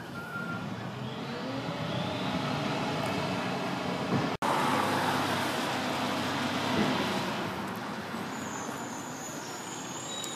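Diesel engine of a Freightliner Condor garbage truck pulling away, its pitch rising as it accelerates. After a sudden break about four seconds in, there is street traffic noise with a car driving past.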